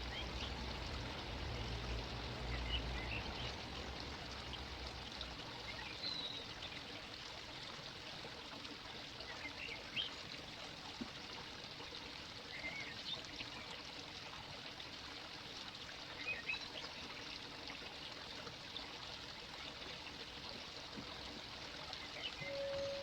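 Early-morning outdoor ambience: a steady rushing hiss with faint bird chirps every few seconds, and a low rumble for the first few seconds. A steady mid-pitched tone comes in near the end.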